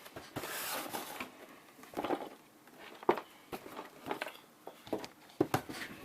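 Cardboard packaging being handled: a brief rustle and slide near the start, then scattered light knocks and clicks as the boxes are moved and set down.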